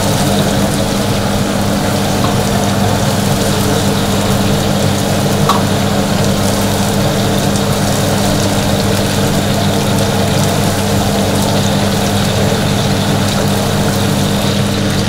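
Steady drone of commercial kitchen equipment: a constant low hum with a broad hiss over it, unchanging throughout.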